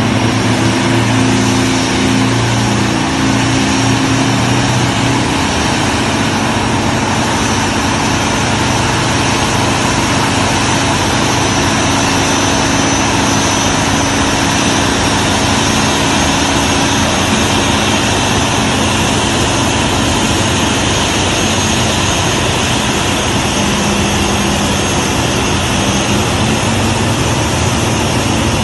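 Aircraft engines running with a steady, loud rush; a low engine hum fades out during the first few seconds.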